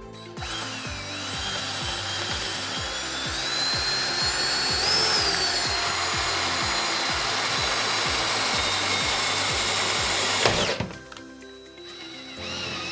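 A DeWalt cordless drill with a twist bit runs for about ten seconds, boring a hole through drywall into a steel stud, with a steady high whine that rises in pitch about midway and then settles. It stops abruptly and starts again near the end. Background music with a steady beat plays underneath.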